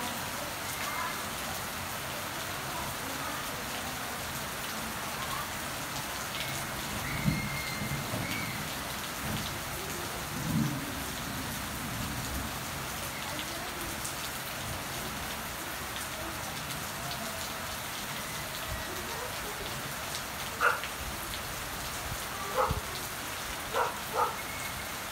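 Steady rain falling on a garden of potted plants, with two short low rumbles of thunder about 7 and 10 seconds in. Four sharp knocks stand out near the end.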